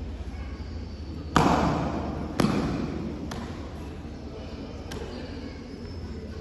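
Two loud, sharp smacks from a pencak silat performer's strikes during a solo form, about a second apart, each ringing on in the large hall's echo, followed by two faint clicks.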